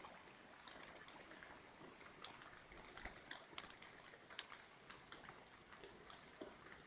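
Near silence: a faint steady hiss with scattered light ticks.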